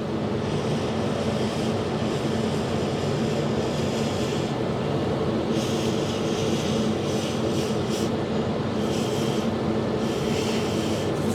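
Handheld heat gun running steadily, its fan and motor giving a constant drone with a low hum as it blows hot air onto UV resin.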